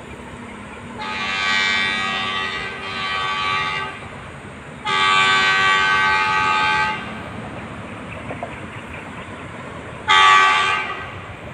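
Diesel locomotive horn of an approaching freight train, sounded three times: two long blasts of two to three seconds each, then a short blast near the end.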